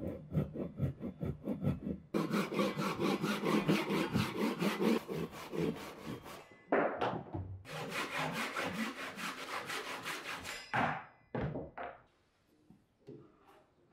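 Handsaw cutting through a wooden block in quick back-and-forth strokes, about four to five a second, with a short pause partway through. A few separate knocks follow near the end, then the sawing stops.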